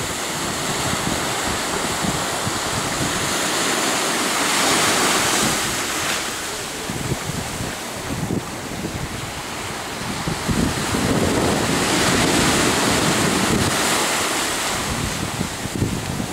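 Sea waves washing with wind buffeting the microphone; the rushing swells louder about four seconds in and again about eleven seconds in.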